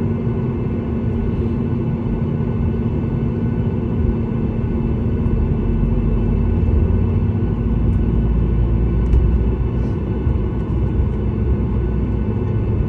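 Cabin noise inside a Boeing 737 MAX 8 during pushback: a steady low rumble with a constant hum, the rumble growing heavier about five seconds in.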